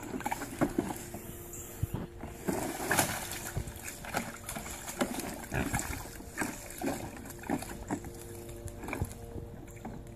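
A pig grunting and shifting its weight in a shallow plastic kiddie pool, the water sloshing and splashing around it in short, irregular bursts.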